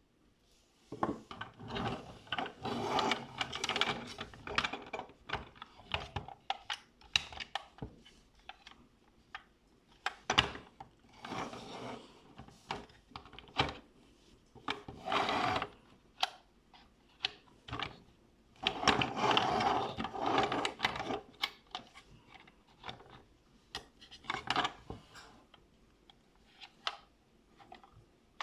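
Hard plastic toy bulldozer being handled and worked by hand: bursts of scraping and rattling, one to three seconds long, broken up by many sharp clicks and knocks of plastic parts.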